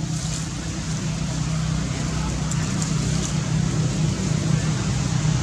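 Steady low hum of an engine running, constant in pitch and level, with a few faint crisp ticks on top.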